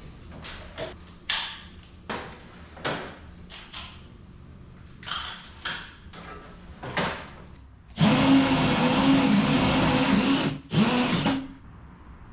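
Power drill running in two bursts: a long run of about two and a half seconds, a brief stop, then a short second run, its pitch wavering. It is preceded by scattered knocks and clicks from handling tools and hardware.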